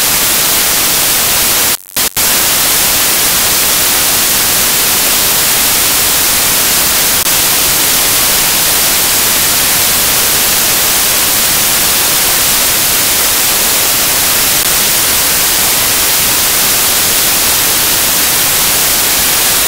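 Loud, steady white-noise static hiss, cutting out briefly twice about two seconds in.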